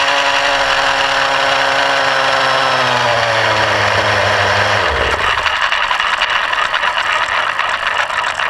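Two-stroke nitro (glow) engine of a 600-size RC helicopter idling on the ground, its pitch slowly sinking, then cutting out about five seconds in. After that the main rotor blades keep whooshing in a rapid flutter as they spin down.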